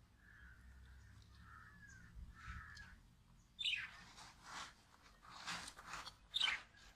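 Pet lovebirds calling: soft squeaky chatter at first, then, from about halfway, four or five loud, harsh, shrill calls.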